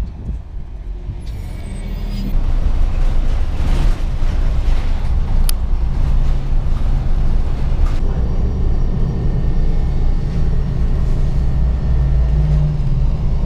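Engine and road rumble of a moving city bus heard from inside the cabin: a steady low drone with a few sharp clicks and rattles. About two seconds in it jumps up from quieter street traffic at the stop.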